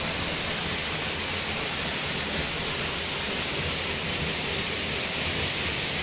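Waterfall pouring down a rock face: a steady, unbroken rush of falling water.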